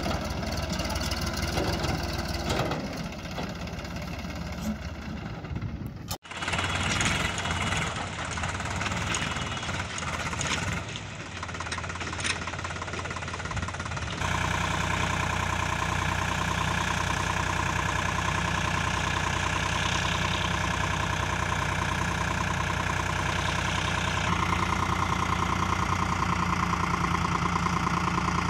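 Tractor diesel engines running across several cut-together shots, with a brief break about six seconds in. In the second half a Sonalika tractor's engine runs steadily, and its note changes near the end as the hydraulic tipping trailer raises its bed to dump sand.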